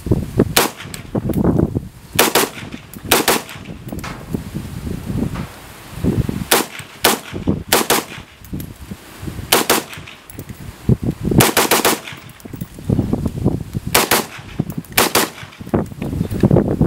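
Knight's Armament SR-15 E3 Mod1 rifle in 5.56×45 firing a string of semi-automatic shots, sharp cracks at an irregular pace: single shots about a half second to two seconds apart, with a quick run of about four shots a little past the middle.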